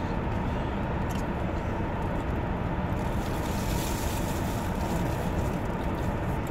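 Steady hum and hiss of a running car, heard from inside the cabin.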